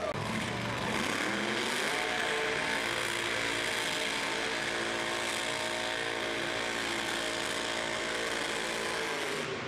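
Lifted 4x4 truck engines revving up over the first second or two and held at full throttle while pulling against each other, tires spinning, then easing off near the end.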